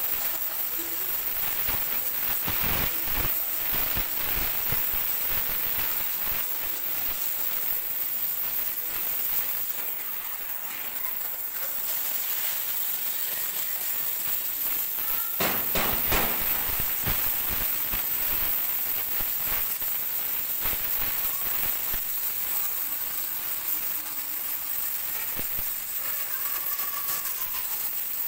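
Oxy-fuel cutting torch cutting through thick steel plate: a steady hiss of the gas jet with constant crackling and spitting from sparks and molten slag, swelling briefly about halfway through.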